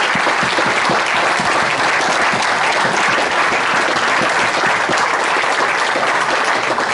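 Crowd of spectators applauding, steady loud clapping.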